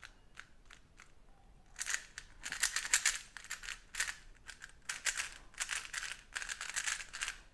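Plastic 3x3 magnetic speedcube (GAN 356 Air UM) being turned by hand: a few single clicks as layers snap into place, then from about two seconds in, fast turning with a dense run of plastic clacks.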